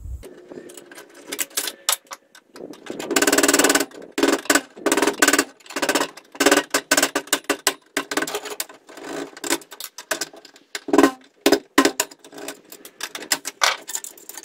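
Hand tools working on the sheet-metal wiring compartment of a Schneider Conext MPPT 80 600 charge controller, freeing a conduit knockout: a steady run of metal clicks, taps and rattles, with a dense rattling burst about three seconds in.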